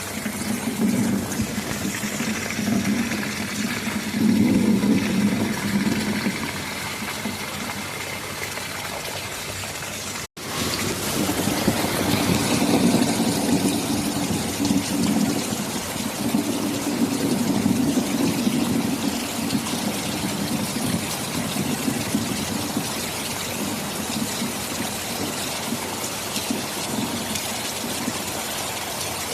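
Steady heavy rain with rolling rumbles of thunder that swell twice. The sound cuts out for an instant about ten seconds in.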